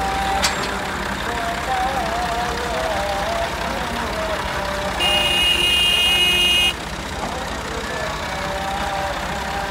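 Diesel farm tractor engines idling steadily while the tractors are hitched together. A sharp click comes about half a second in, and about halfway through a high, steady horn-like tone sounds for nearly two seconds, then cuts off abruptly.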